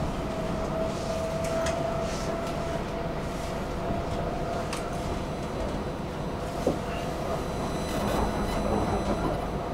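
Stockholm metro train running, heard from inside the carriage: a steady rumble of wheels on rail with a steady whine, and a few light clicks.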